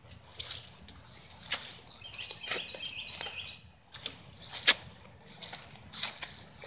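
Rustling and brushing through grass with scattered clicks, the sharpest one about four and a half seconds in. A bird chirps a quick run of notes about two to three seconds in.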